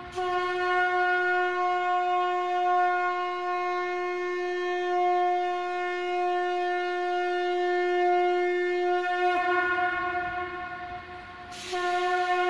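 Conch shell (shankha) blown in one long steady note that holds for about nine seconds, then sags slightly in pitch and dies away. A fresh blast starts shortly before the end with a rush of breath.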